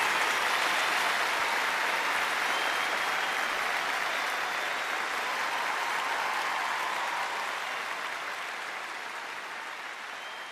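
Large audience applauding at the close of a live rock performance, the applause slowly fading out over the last few seconds.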